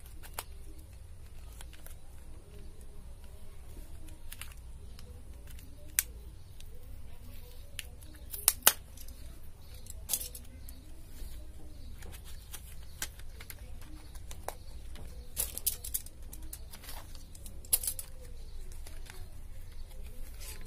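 Paperboard pencil box being cut open with a utility knife and its flaps pried apart: scattered clicks, snaps and scraping of cardboard, loudest about eight seconds in.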